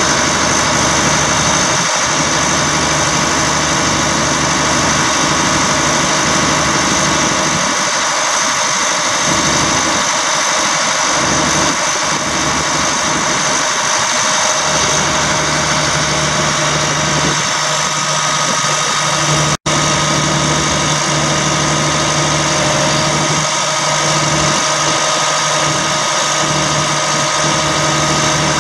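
The truck's Caterpillar 3126 inline-six diesel idling steadily at constant speed. The sound cuts out for an instant about twenty seconds in.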